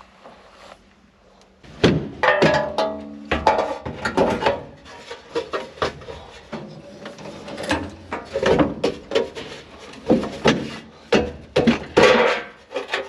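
Irregular clunks, knocks and scrapes of hand work on metal parts in an old truck's engine bay, starting about two seconds in, with a brief squeal-like scrape soon after.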